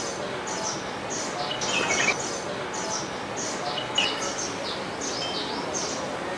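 Small garden birds chirping: a steady stream of short high chirps, with two louder, lower notes about two and four seconds in.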